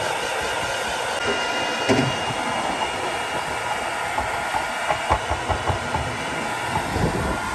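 Handheld hair dryer blowing steadily on high, drying wet paint on a canvas, with a few light knocks from handling over it.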